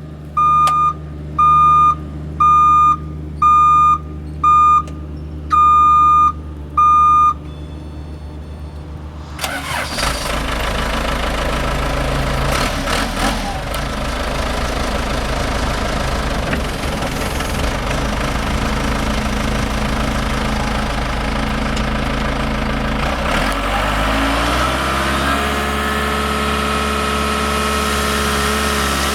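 Case 580SM backhoe: a series of about seven high warning beeps, then its diesel engine cranks and starts about ten seconds in. The engine runs steadily, then revs up near the end and holds at higher speed.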